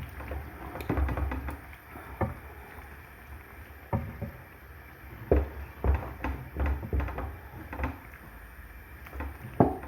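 Irregular knocks, clinks and thuds of cooking utensils handled against a pot while stew is being made.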